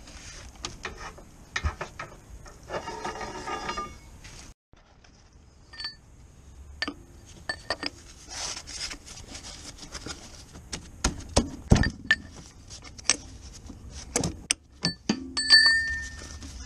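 Steel pry bar knocking and scraping against a driveshaft's CV joint and the gearbox casing while levering the shaft out, giving a run of sharp metallic clinks and knocks, some ringing briefly.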